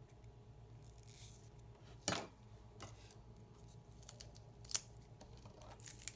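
Small metal watchmaker's tools clicking and tapping against tiny watch parts while a Seiko 2205 wristwatch is reassembled. The clicks are few and irregular, the sharpest about two seconds in, over a faint steady low hum.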